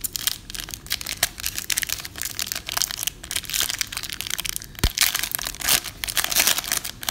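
Foil wrapper of a trading-card pack crinkling and crackling as it is opened and crumpled by hand, in dense irregular bursts that are loudest about five to six and a half seconds in.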